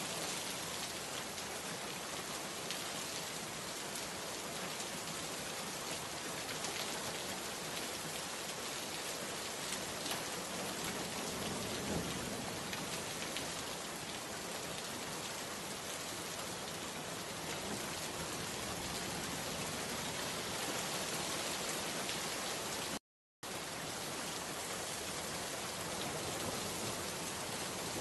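Steady rain-like hiss that stays even throughout, with one brief cut to silence near the end.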